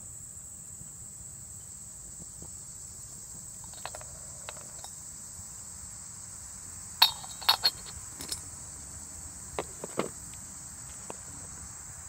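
A metal pot lid clanking against a stainless steel pot: a cluster of sharp clanks about seven seconds in and a few more near ten seconds. Insects trill steadily underneath.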